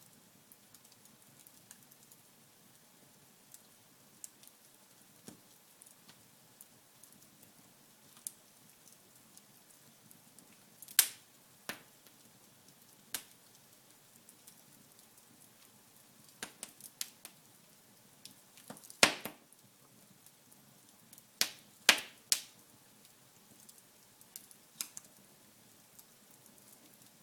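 Wood fire in a fireplace crackling, with irregular sharp pops and snaps; the loudest come in a few clusters.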